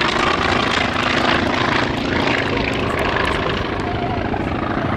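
Polikarpov I-16's nine-cylinder radial engine and propeller droning steadily as the fighter flies a banking display pass.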